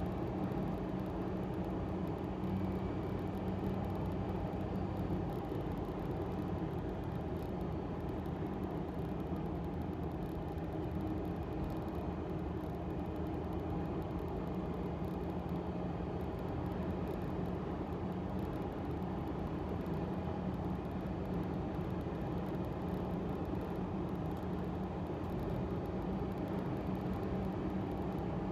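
Subaru Sambar kei vehicle cruising at steady expressway speed, heard from inside the cab. Engine and tyre-and-road noise make an even drone with a steady low hum.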